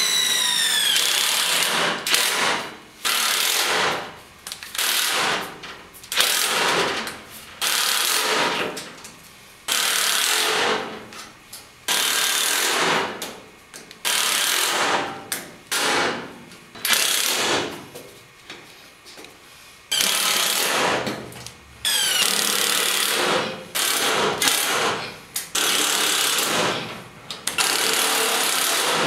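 Cordless impact driver hammering in about a dozen short runs as it drives #8 self-drilling screws through sheet metal into a steel frame. After a couple of the runs the motor winds down with a falling whine.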